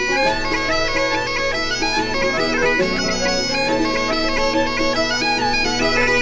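Intro theme music: a bagpipe melody of held notes over a steady low drone.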